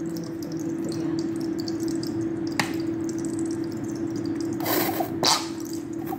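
Plastic squeeze bottle of ranch dressing squeezed out over a bowl, with two short sputtering squirts near the end, over a steady hum.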